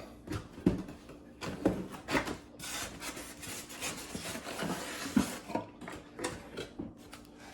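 Irregular rubbing, scraping and light knocks of RC plane parts and their packaging being handled and lifted out of the box.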